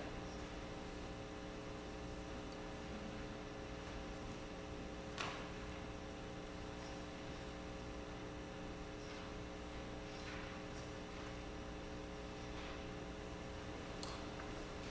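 Steady electrical mains hum over faint room tone, with an occasional soft knock, the clearest about five seconds in.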